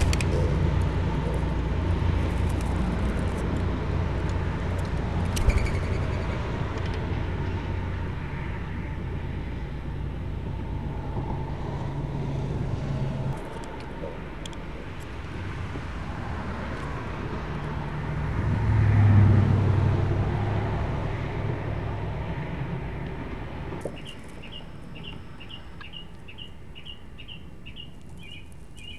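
Low rumble of passing road traffic, swelling about two-thirds of the way through. Near the end it cuts off and a steady run of high chirps follows, about two or three a second.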